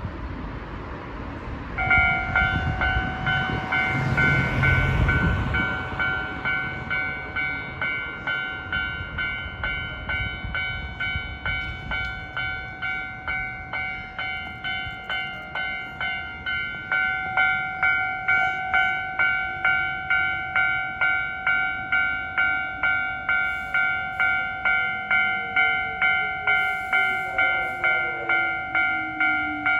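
Japanese railway level-crossing warning bell sounding, an electronic ding with several tones repeating about twice a second, starting about two seconds in. A low rumble from a passing vehicle comes early on, and a falling whine builds near the end.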